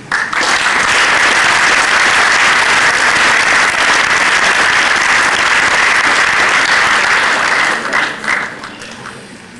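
Audience applauding: clapping that starts at once, holds steady for about seven seconds, then dies away near the end.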